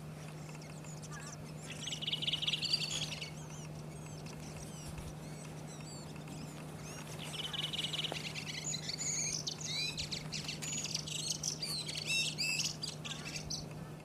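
Redwing singing in two phrases: a short one about two seconds in and a longer one from about seven seconds, each opening with a fast trill, the second running on into a long, varied twitter. A steady low hum runs underneath.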